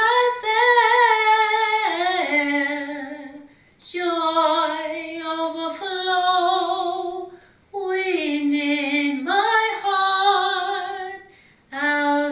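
A woman singing solo and unaccompanied, in long held notes with a wavering vibrato. She sings three phrases, with short breaks for breath between them.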